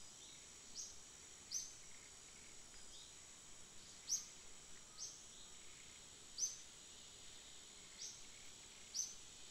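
Outdoor insect drone, a steady high-pitched hum, with short high chirps breaking in about seven times at uneven intervals of roughly a second.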